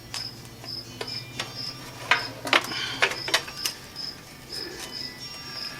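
Sharp plastic clicks and knocks of a vehicle light's wiring connector being worked and unplugged, loudest in a cluster a couple of seconds in. Behind it a cricket chirps steadily, about twice a second.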